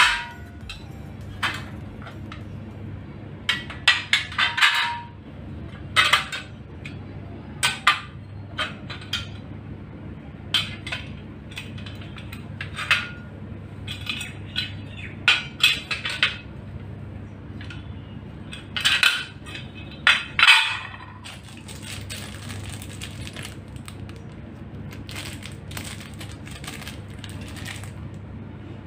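Adjustable metal microwave wall-mount brackets clinking and clanking as they are handled, unfolded and set down on a tiled floor: irregular sharp metallic knocks, some briefly ringing, that thin out after about twenty seconds, over a steady low hum.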